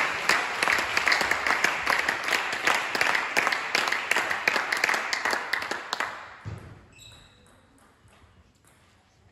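Spectators applauding after a table tennis rally, dying away about six seconds in; then a few faint pings of a table tennis ball.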